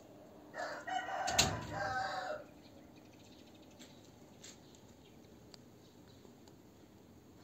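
A rooster crowing once, a call of about two seconds, with a single sharp knock partway through it. Low, quiet background with faint ticks for the rest.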